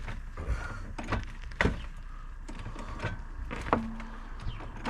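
A string of sharp clicks and knocks at an uneven pace, roughly one every half second to second, with a short low hum about four seconds in.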